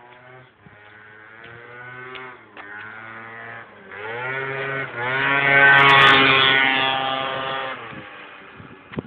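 Aprilia SR scooter engine at high revs. It rises in pitch and grows steadily louder, is loudest about six seconds in, then fades away.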